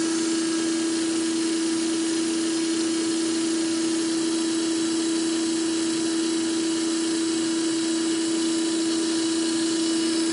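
Pump and electric motor of a diesel fuel filter cart running steadily, a constant hum with one strong unchanging tone.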